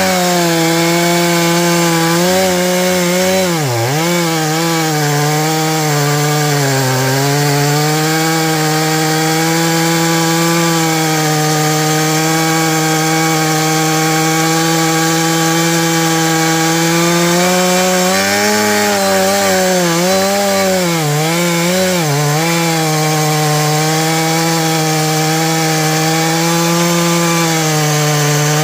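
Stihl MS461 two-stroke chainsaw with a 32-inch bar running at high speed while cutting through a log. Its pitch drops briefly as the chain loads up in the cut, once about four seconds in and several times in quick succession about two-thirds of the way through, recovering each time.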